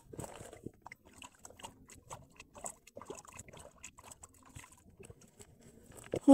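Faint scattered clicks and rustling of a man moving on shoreline rocks with his rod and backpack, followed near the end by a man's voice falling in pitch.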